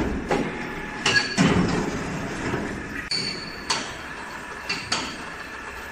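A series of sharp metal clinks and knocks, about seven in a few seconds, some leaving a brief high ring: a crane-hung metal pump casing and its lifting chains being lowered and nudged into place on a submersible slurry pump body.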